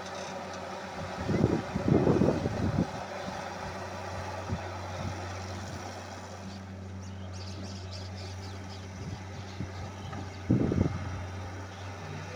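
Wheeled Fiat-Hitachi excavator's diesel engine running steadily, with two bursts of heavy thumps, about a second and a half in and again about ten seconds in.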